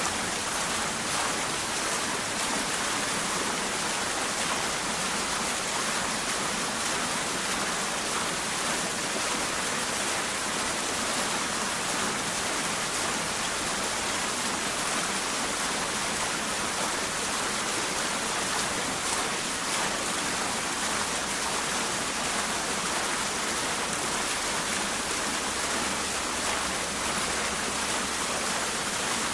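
Water fountain running: falling water making a steady, even splashing rush, unbroken throughout.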